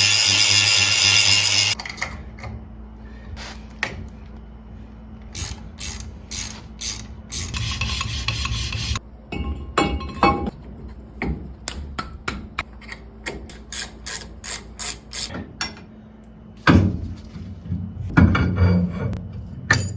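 A short, loud burst of angle grinding on steel at the start, then clinks and knocks of hand tools on metal parts, with quick runs of ratchet-wrench clicking in the second half.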